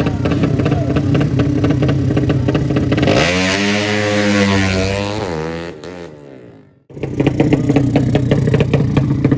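Drag-racing motorcycle engines. One engine holds a steady high note for about two seconds, then its pitch falls as it fades away. After a sudden cut, engines are running again.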